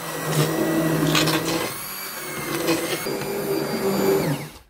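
Hand-held immersion blender running in a stainless steel pot, its motor humming steadily as the blade churns cooked vegetables into a smooth purée. The motor winds down and stops near the end.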